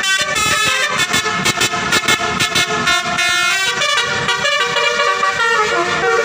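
Bus telolet horns, a bus's set of multi-tone air horns, playing a fast tune of quick stepping notes that switch on and off sharply.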